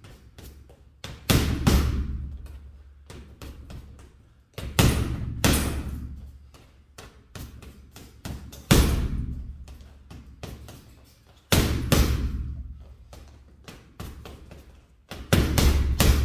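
Boxing gloves hitting a hanging heavy bag hard: single punches and quick pairs of punches about every three to four seconds, each a heavy thud with a low booming tail that fades over a second or so. Lighter taps in between.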